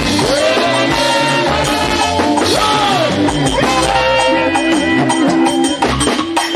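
Live Nigerian gospel band music: a gliding melody line over a steady, busy percussion beat.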